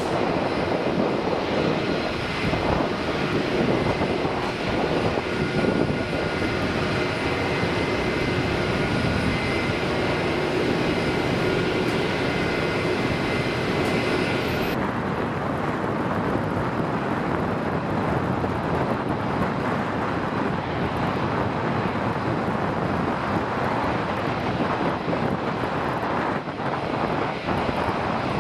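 Twin GE90 turbofans of a Boeing 777 at takeoff thrust during climb-out: a loud steady rush of jet noise with a few steady whining tones. About 15 seconds in it switches suddenly to a duller, steadier jet noise with less treble, from an Airbus A320 on the runway.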